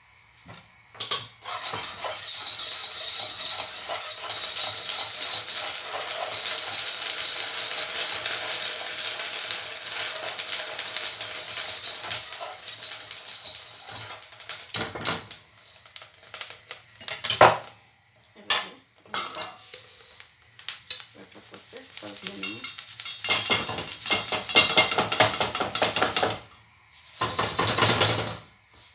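Rice grains puffing in hot salt in a saucepan, a dense crackling of popping grains and rattling salt while they are stirred with a whisk, for about twelve seconds. Then scattered clicks and knocks of the pot, and a second spell of crackling and rattling near the end.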